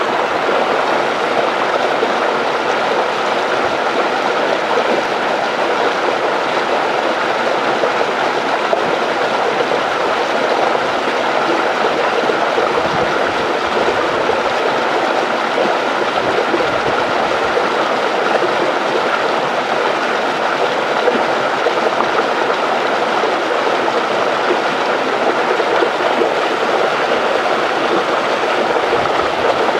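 Water rushing over a dam: a loud, steady, even rush that does not change.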